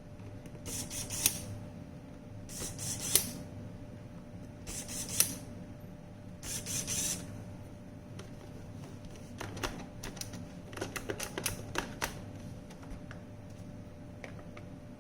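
Small parts being handled: four short scraping sounds, some ending in a sharp click, then a quick run of small clicks and taps. Likely plastic parts and screws of a robot vacuum cleaner being fitted.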